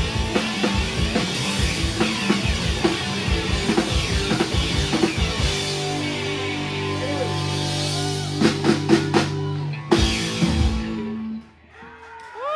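Live rock band of two electric guitars, bass guitar and drum kit playing the instrumental close of a song: busy drumming under the guitars for about five seconds, then a long held chord with a few scattered drum hits. A final hit about ten seconds in ends the song, the chord rings out and cuts off, and a few sliding guitar squeals follow.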